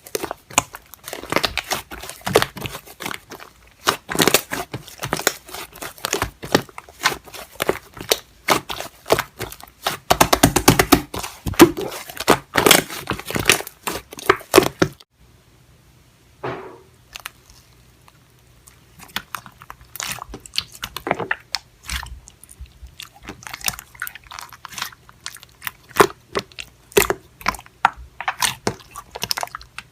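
Slime being squeezed and pressed in the hands, with dense crunchy crackling and popping clicks. About halfway through it becomes quieter, with sparser clicks over a faint low hum.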